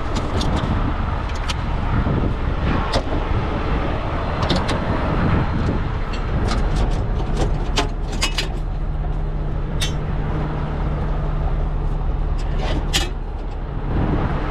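Heavy truck's diesel engine idling steadily, with sharp metal clinks and clanks of hooks and chain as tie-down straps are pulled out of a toolbox compartment.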